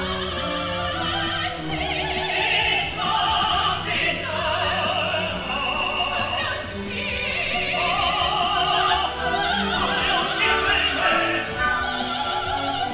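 Male and female opera singers singing with heavy vibrato, their voices overlapping, over orchestral accompaniment, at the climax of the opera.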